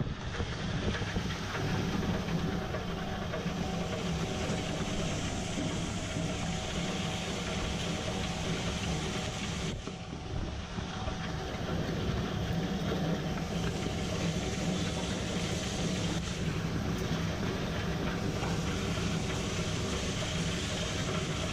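Electric stone wet grinder running steadily, its steel drum turning under a stone roller as it grinds a jaggery and pearl millet mix: a continuous mechanical noise with a low hum. It dips briefly about ten seconds in.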